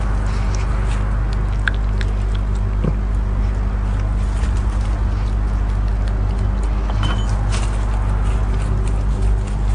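A steady low droning hum, like an engine running, with a few faint short clicks and brief high chirps over it.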